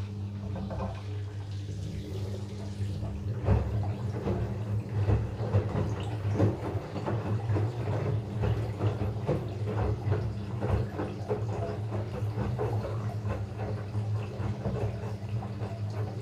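LG front-load washing machine on its rinse cycle: water sloshing and splashing irregularly in the turning drum over a steady low machine hum.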